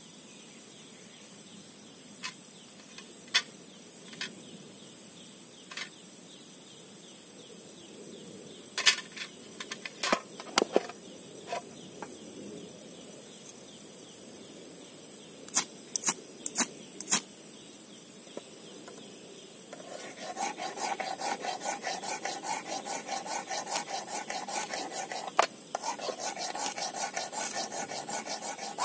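A ferrocerium rod striker scraping in quick repeated strokes from about two-thirds of the way in, after scattered clicks and knocks of handling. A steady high insect buzz sounds behind it.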